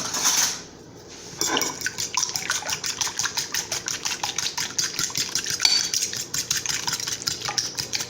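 Eggs being beaten with a fork in a bowl: quick, regular clicks of metal on the bowl, several strokes a second, starting about a second and a half in. A brief hiss comes just before the beating starts.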